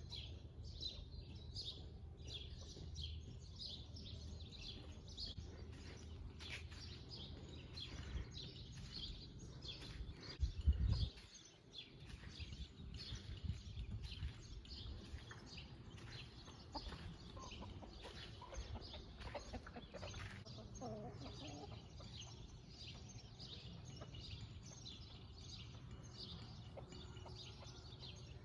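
Domestic chickens clucking faintly, with small birds chirping steadily throughout. A brief low rumble about eleven seconds in is the loudest moment.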